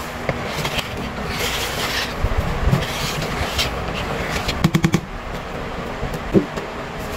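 Wire whisk beating steamed-cupcake batter in a mixing bowl, scraping against the bowl, with a quick run of about six clicks a little past halfway and a single knock near the end. A steady background rumble runs underneath.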